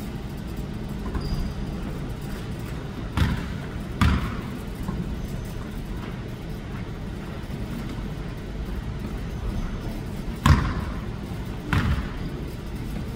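Basketball bouncing on a hardwood gym floor in four separate thuds, two about three and four seconds in and two near the end, each echoing briefly in the large hall. A steady low room noise runs underneath.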